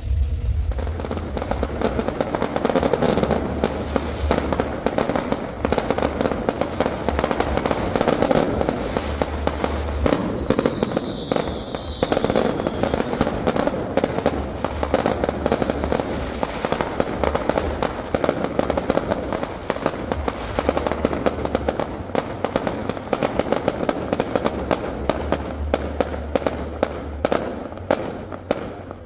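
Aerial fireworks going off in rapid succession: a dense, continuous crackle of bursts and reports, with a short whistle about ten seconds in. Near the end the bursts thin out into separate sharp pops.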